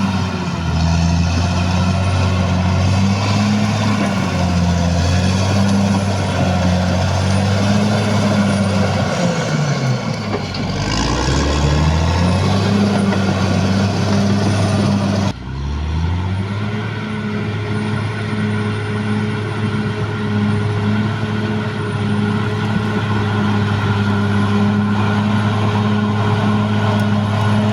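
Caterpillar D6R bulldozer's diesel engine running, its pitch sagging and recovering about ten seconds in. About fifteen seconds in the sound breaks off abruptly and resumes with the engine running steady and a thin whine above it.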